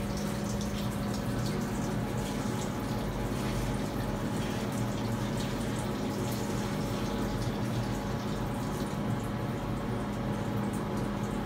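A CNC milling machine standing by with its pumps humming steadily, while coolant trickles and drips inside the machine's enclosure onto a freshly machined aluminium part.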